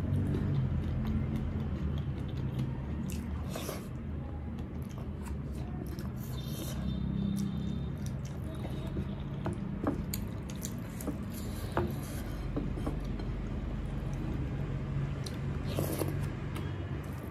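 Dal and rice being mixed by hand on a plate and eaten close to the microphone: fingers squishing and scraping the wet rice, then chewing with scattered sharp mouth clicks.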